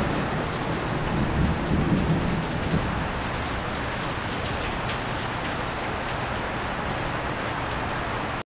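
Steady heavy rain falling on a pool and its screen enclosure, with a low rumble of thunder in the first few seconds.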